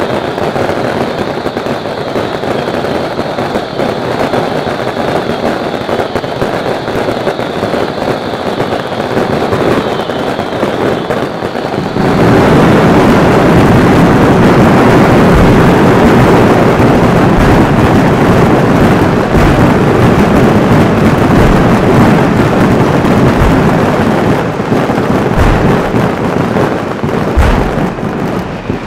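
Daytime fireworks display: a continuous dense barrage of crackling bangs from bursting shells and firecrackers. About twelve seconds in it suddenly becomes much louder and denser, with deep booms dotted through the rest.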